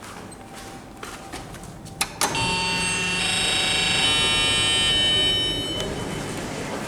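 2004 Otis lift making a loud, high-pitched screeching squeal for about three and a half seconds, after two sharp clunks about two seconds in: one of its awful mechanical noises.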